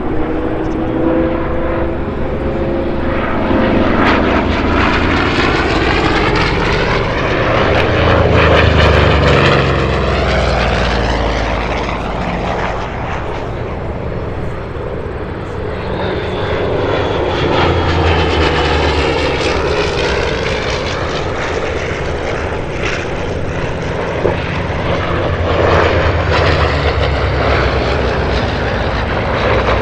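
Propeller-driven aircraft flying past, the engine sound swelling and fading twice with its pitch sweeping down as each pass goes by.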